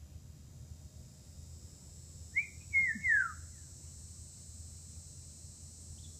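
A songbird sings one short phrase of three quick slurred notes about two and a half seconds in, the last note falling sharply in pitch. The recordist guesses it is a black-whiskered vireo.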